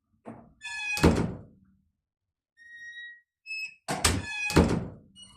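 An interior door on a Rutland overhead door closer squeaks as it swings, then shuts with a loud thunk about a second in. More thin squeaks follow, and the door knocks shut twice more near the end.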